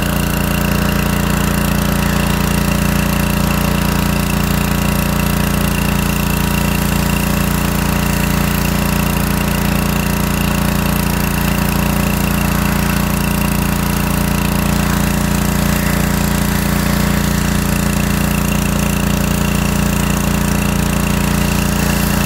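Gas pressure washer's small engine running steadily at a constant pitch while it sprays.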